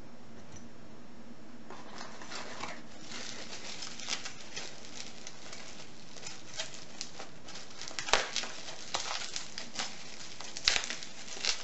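Packaging rustling and crinkling, with scattered clicks of padlocks and tools being handled as a parcel is unpacked. Two louder knocks stand out, one about two-thirds of the way through and one near the end.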